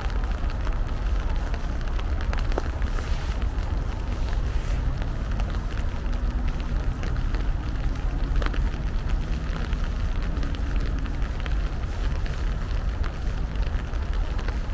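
Steady rain falling, a constant hiss with scattered sharper drop ticks over a deep low rumble.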